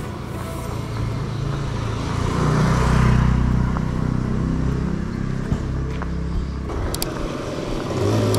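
A motor vehicle passing close by on the road: its low engine hum swells about two seconds in, is loudest around three seconds, and fades out by six or seven seconds.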